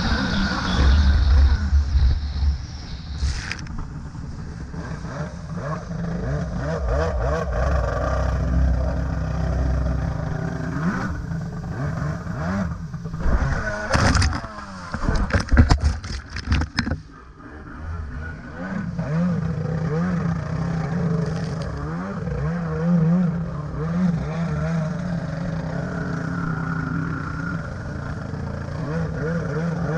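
Stand-up jet ski's two-stroke engine running and revving up and down over choppy water, with splashing. About halfway through comes a burst of loud splashing and clattering as the ski goes over in a flip; the sound drops briefly, then the engine picks up again.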